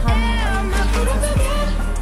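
Background pop song: a sung vocal line over a beat.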